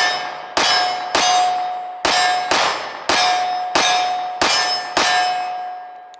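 Eight 9mm pistol shots from a Glock 26 Gen 5, fired at a steady pace about one every half second to second, each met by the clang of a hit steel target that rings on one steady tone. The ringing dies away after the last shot.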